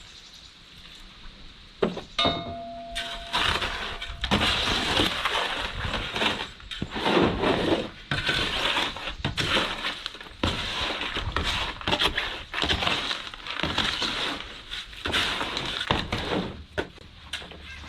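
Concrete mix being worked with a tool: continuous gritty scraping and crunching of stones and grit, after a sharp knock about two seconds in that leaves a short metallic ring.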